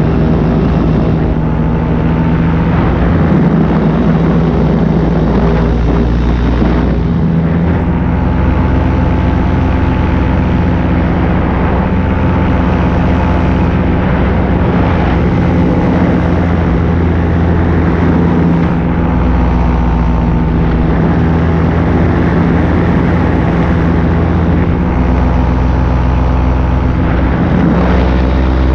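Paramotor engine and propeller running steadily at cruise in flight, holding an even pitch.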